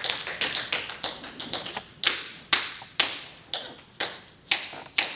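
Tap shoes striking a hard floor in a tap dance: a quick flurry of taps, then from about two seconds in single sharp taps in an even beat, about two a second.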